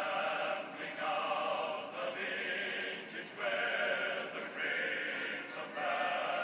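Background music: a choir singing long held chords that change about once a second.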